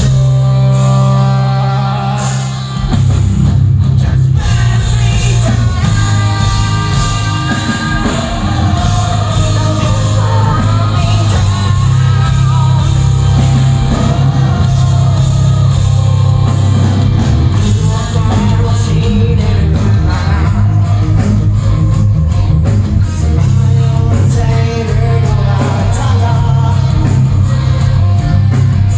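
Heavy rock band playing live, with a singer. A held chord opens, then the full band with drums comes back in about three seconds in.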